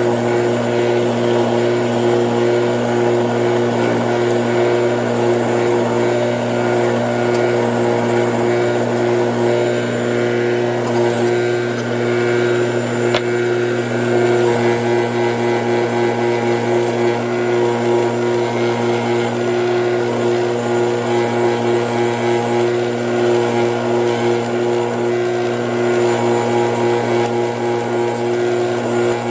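Bench grinder running steadily with a wire wheel, a copper ingot held against it: a constant motor hum under the rasp of wire bristles scrubbing the metal.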